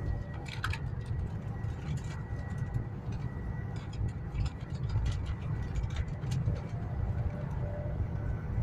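Steady low rumble inside the passenger carriage of a Chinese high-speed bullet train running at about 260 km/h, with a faint steady high tone and scattered light clicks and ticks.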